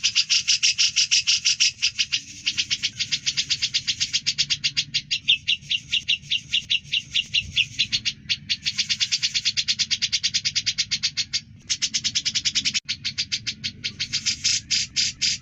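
Cucak jenggot (grey-cheeked bulbul) singing a rapid, loud chattering run of repeated sharp notes, about ten a second. The run goes in long trains broken by a few brief pauses.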